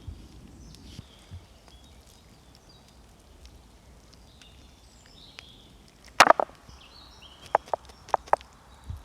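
Chopping strikes on wood: one loud strike about six seconds in, then a quick run of lighter, sharp knocks. Small birds chirp in the background.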